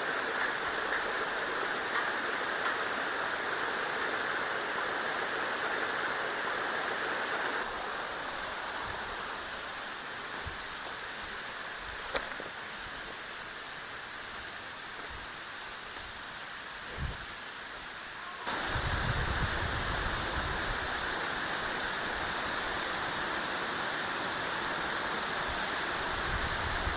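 Steady rush of falling water from Likeke Falls, with a couple of faint knocks midway. About two-thirds through it turns abruptly louder, with a low rumble added.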